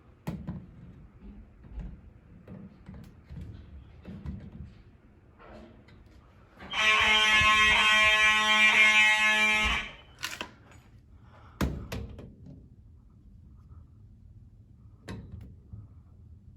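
FCI fire alarm horn sounding one steady, loud blast for about three seconds, starting a little under seven seconds in. A few short knocks come before and after it.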